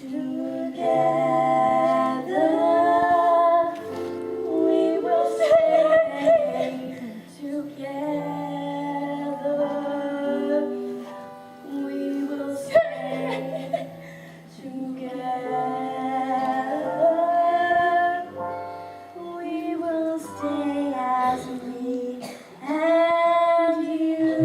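A female voice singing a song with long held notes over steady instrumental accompaniment.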